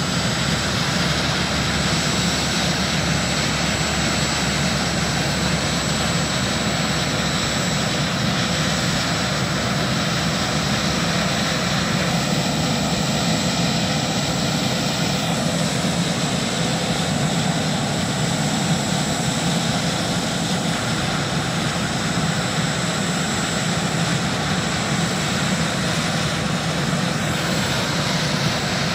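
Sikorsky S-61A helicopter's twin turboshaft engines running with the rotors turning while it sits on the ground before takeoff: a steady high turbine whine over a low rumble, unchanging throughout.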